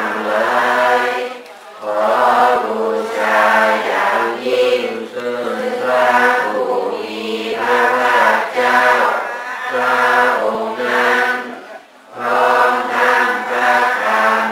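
Several voices chanting a Buddhist prayer in unison, in steady phrases with brief pauses for breath between them.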